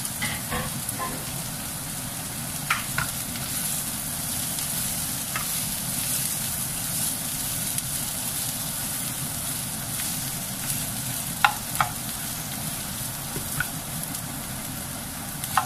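Sliced carrots and onions sizzling steadily in hot oil in a non-stick frying pan as they are stir-fried, with a handful of sharp clicks of the spatula against the pan, the loudest two close together about two-thirds of the way through.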